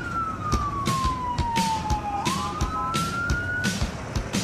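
Fire engine siren wailing: one tone slides down for about two seconds, then sweeps quickly back up and stops shortly before the end. Under it runs a steady beat of sharp knocks.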